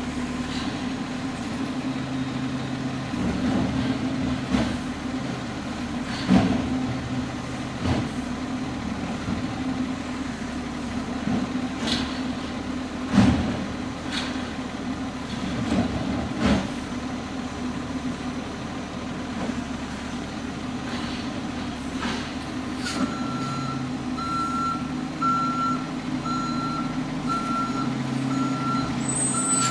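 Garbage truck's diesel engine running steadily, with several loud clanks from its work at the bins. About 23 seconds in, its reversing alarm starts beeping about once a second as it backs up, and an air brake hisses near the end.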